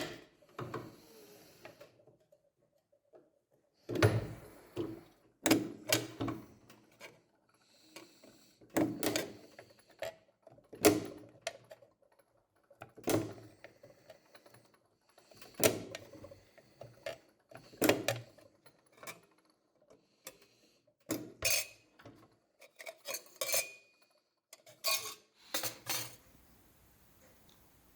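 Metal knocks and clanks from working the small metal dishes of an oil lamp, coming irregularly about one every second or two and stopping shortly before the end.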